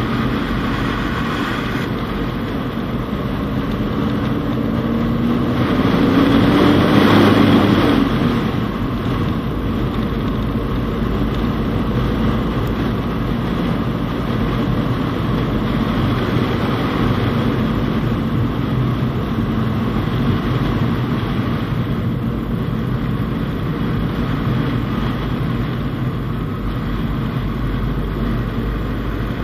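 Fiat Panda Cross driving on a snowy road, heard from inside the cabin: steady engine and tyre noise. The engine note rises and swells to a peak about seven seconds in as the car accelerates, then settles back to a steady cruise.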